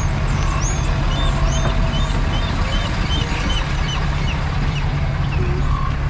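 Steady low rumble from a slowly moving car, with small birds chirping over and over.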